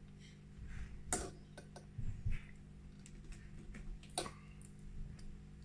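Small clicks and handling noise from needle-nose pliers squeezing a loose spade-terminal crimp connector and pressing it onto the woofer's terminal, to tighten its grip. There are two sharper clicks, one about a second in and one near four seconds, with fainter ones between.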